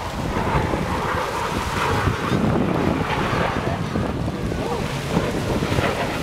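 Wind buffeting the microphone, a steady rushing noise heaviest in the low end, with the wash of sea water beneath it.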